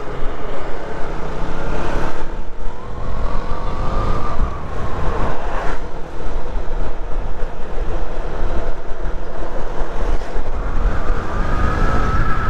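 Heavy, steady wind noise buffeting a helmet-mounted microphone on a motorcycle riding at speed, with engine and road noise underneath. A faint whine rises a few seconds in and again near the end.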